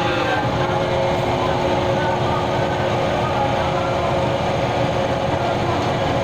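A large engine running steadily, with a constant hum and several held tones.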